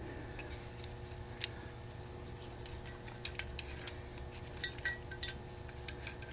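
Light metallic clicks and clinks of small carburetor parts being handled: a few scattered sharp ticks, most of them bunched together in the second half.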